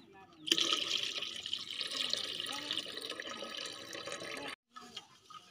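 Starchy rinse water being poured off washed rice from a steel bowl into a metal pot: a steady splashing pour that starts about half a second in and cuts off suddenly about a second before the end.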